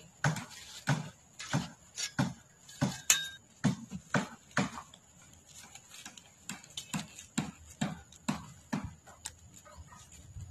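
A series of soft knocks and thuds, about one to two a second and louder in the first half, from a thin scrap-aluminium edging strip being bent and worked into the soil of a garden bed.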